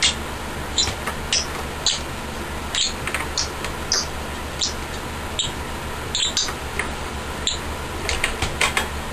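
Short metallic clicks and taps, one or two a second with a quick cluster near the end, as a kickstand and its bolt are handled and screwed onto a BMX bike frame by hand, over a steady low hum.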